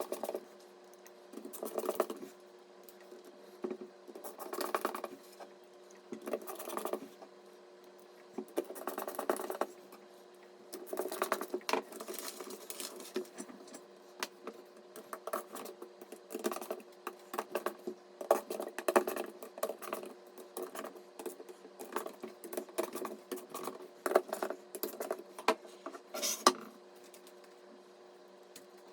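Hands handling computer parts: irregular bursts of rustling and scratching with small plastic and metal clicks, over a faint steady hum.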